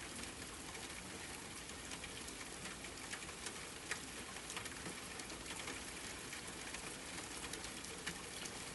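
Steady rain falling, an even hiss with many scattered droplet ticks, used as a calming rain soundscape.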